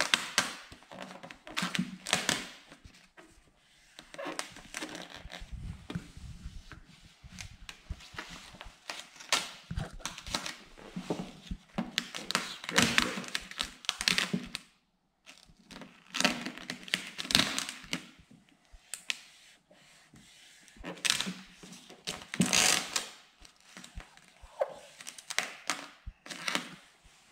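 Dark smoke vinyl tint film crinkling and crackling as it is lifted, peeled back and pressed over a car tail light lens by hand, in irregular bursts with a short pause about halfway through.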